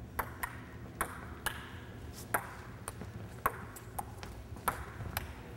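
Table tennis rally: the celluloid ball clicks sharply off the paddles and the table, about two clicks a second, each with a short hall echo.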